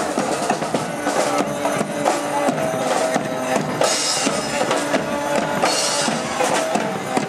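Marching street band playing: horns holding notes over a steady bass drum and snare beat.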